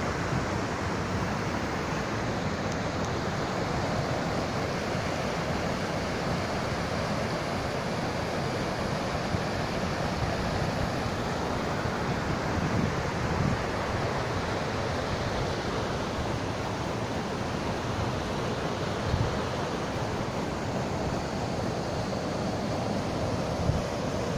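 Steady rush of a small mountain river's waterfall pouring into a rock pool, with the stream running over rocks.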